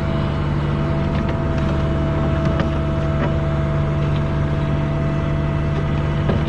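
Mini excavator's diesel engine running steadily at constant speed, with a steady whine over the drone.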